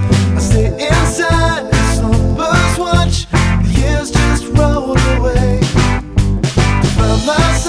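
Rock song with electric guitar, bass and drums at a steady beat; an instrumental stretch between sung verses.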